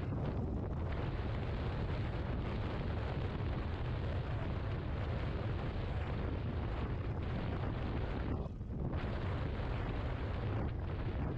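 Steady low wind rumble buffeting the microphone of a Yamaha XMAX 250 maxi-scooter riding at speed, with road noise blended in. There is a brief lull about eight and a half seconds in.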